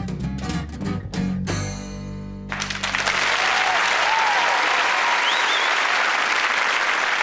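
A small lounge band of acoustic guitar, double bass and drums plays the last bars of a song and ends on a held chord that cuts off about two and a half seconds in. A studio audience then applauds steadily.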